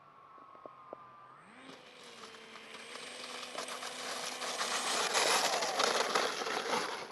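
Electric RC plane's motor and propeller, running at a low steady whine, then rising in pitch about a second and a half in as the throttle comes up. The sound grows steadily louder with a rough, crackly rush, then cuts off abruptly near the end.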